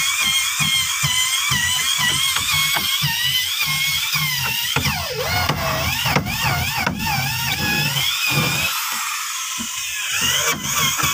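Background music with a steady beat and a wavering high melody.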